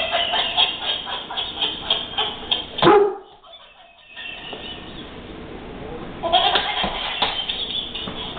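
Battery-powered plush longhorn steer toy giggling in rapid bursts as it tumbles on the floor. It breaks off briefly about three seconds in and then starts laughing again.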